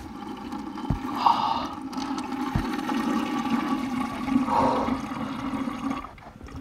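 A man urinating into a container: a steady stream of liquid splashing, which stops about six seconds in. There are two soft bumps early on.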